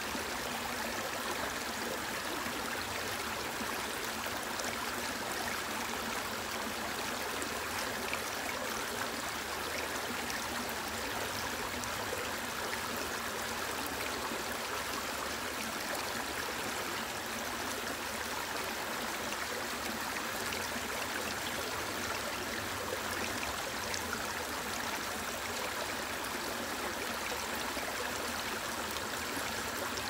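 Shallow rocky stream running over stones and through small riffles: a steady rush of water.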